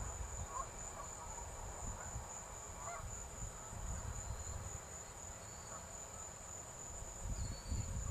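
Steady high-pitched drone of insects in the field, with low rumbling noise on the microphone that grows near the end. A few faint short calls sound now and then.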